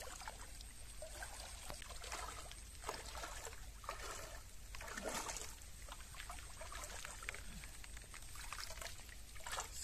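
Shallow water trickling and splashing in short, irregular bursts, stirred by hands groping through a pond or river bed for freshwater mussels (setua).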